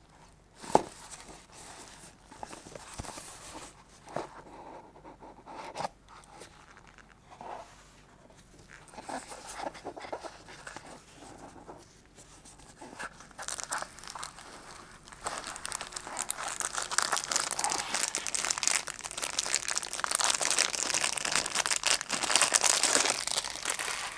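Handling of a small cardboard box, with light knocks and scrapes and a sharp click about a second in. From about halfway, clear plastic wrap crinkles continuously and loudly as it is pulled off a small figure head.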